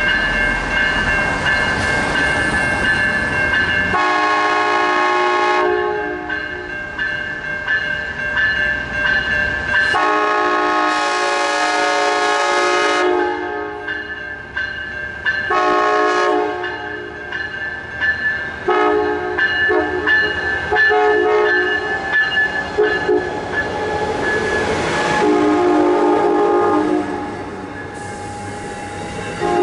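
Amtrak passenger train's locomotive horn sounding a series of long and short blasts, the warning pattern for a grade crossing, as the train approaches and passes. Under it the crossing's warning bell rings steadily, and near the end the passenger cars roll past.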